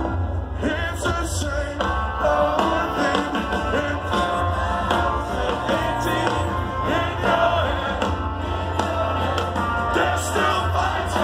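A rock band playing live through a festival PA, a male singer's voice carrying the melody over a heavy, boomy bass, heard from within the crowd.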